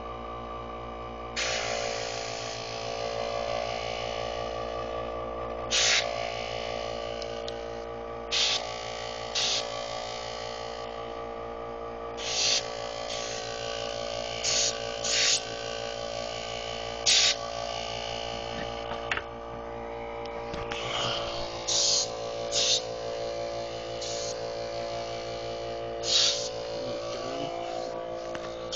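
Compressed air hissing from a handheld blow gun in short bursts, about a dozen times, over a steady hum.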